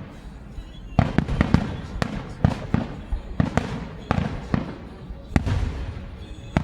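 Fireworks going off in rapid succession: clusters of sharp cracks and bangs, each trailing a rumbling echo, starting about a second in and running on with a brief lull near the middle.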